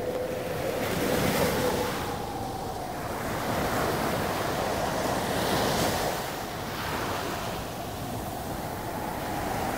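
Ocean surf: a steady rushing of waves that swells and eases every few seconds.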